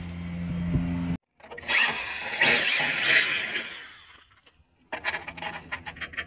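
A tool working the sheet metal of the radiator support to enlarge a hole: a harsh rasping noise for about two and a half seconds, building then fading. Before it a steady hum cuts off, and after it come light clicks and rattles of parts being handled at the hole.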